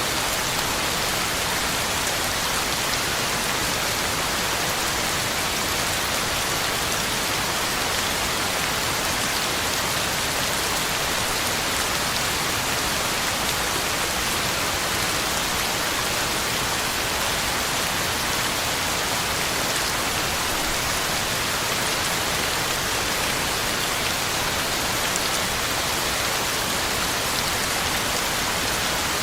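Heavy rain falling steadily, a constant even hiss of drops on the ground and leaves.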